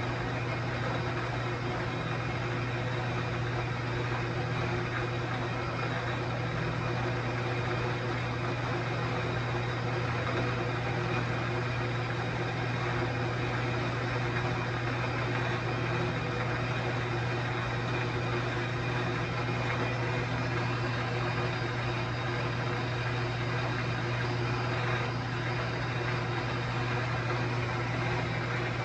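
Metal-cutting saw running steadily through a cut, a constant motor hum with an even mechanical hiss and no change in level.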